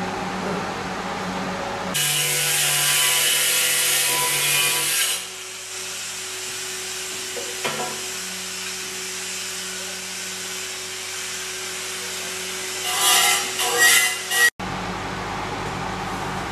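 A small handheld grinder working the edge of a sintered stone slab: a loud rough grinding hiss for about three seconds, then the motor running more quietly with a steady tone, then a few short loud bursts of grinding before the sound cuts off abruptly. A steady fan-like hum lies under the start and the end.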